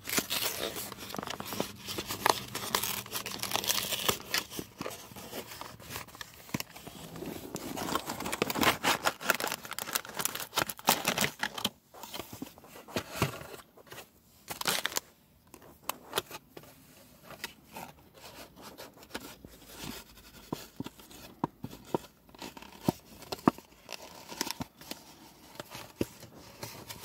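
Plastic packaging of a tuna salad and crackers kit being torn open and crinkled, with many sharp crackles and clicks. The handling is busiest in the first ten seconds or so, then turns to scattered crackles.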